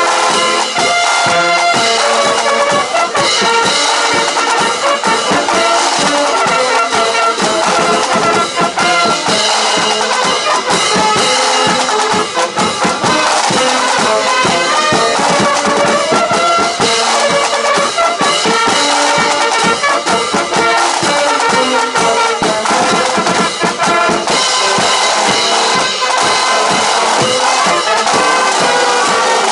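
Marching band playing live: brass instruments over drums.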